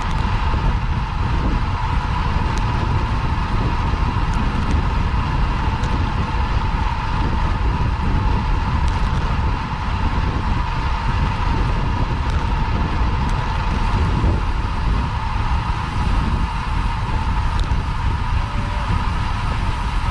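Wind buffeting the microphone of a bike-mounted action camera, with road and tyre noise from a road bicycle riding at speed. The rumble is steady, with a constant hum underneath.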